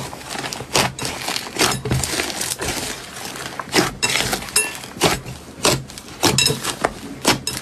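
Slime being squeezed and worked, giving off a dense run of irregular crackling, popping clicks.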